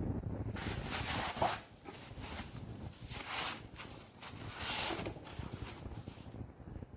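Footsteps scuffing and crunching over a debris-strewn floor, with three louder scrapes about a second and a half apart, over a low rumble.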